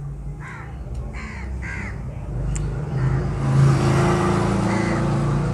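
A crow cawing three times in quick succession, about two-thirds of a second apart. From about three seconds in, a steady low mechanical hum, like an engine, grows louder.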